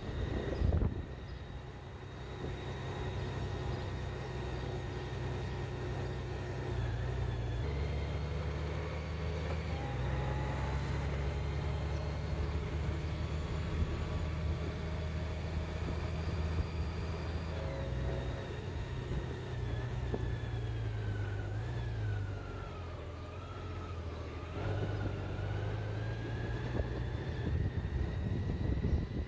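A road vehicle's engine running steadily while under way. Its low note steps up and down several times, about 8, 10, 18 and 25 seconds in, as speed or gear changes.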